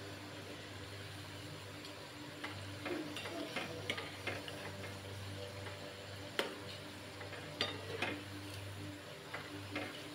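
Onion pakoras deep-frying in oil in a metal kadhai with a faint sizzle. From about two and a half seconds in, a metal ladle turning them scrapes and clicks against the pan a dozen or so times, with a steady low hum underneath.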